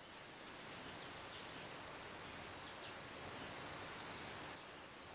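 Faint outdoor garden ambience: a steady high-pitched hiss with a few faint, short descending bird chirps.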